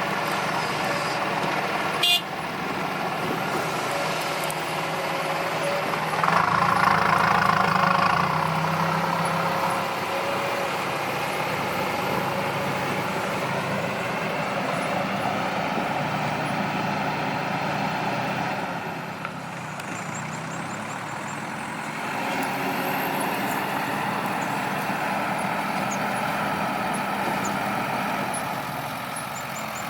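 Heavy diesel machinery, an excavator working alongside a dump truck, running steadily, with the engine noise swelling for a few seconds early on and a short sharp click near the start.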